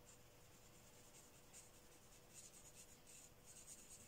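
Faint, irregular scratching of a felt-tip marker's nib stroking across colouring-book paper as a leaf is coloured in.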